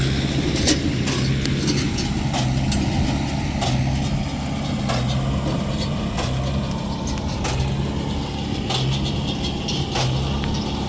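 Tractor engine running steadily with a hay baler working, a pulsing hum broken by repeated sharp knocks at irregular intervals.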